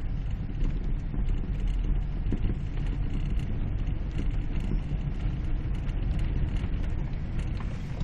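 Steady low rumble of a vehicle's engine and running gear heard from inside the cabin while driving through deep snow.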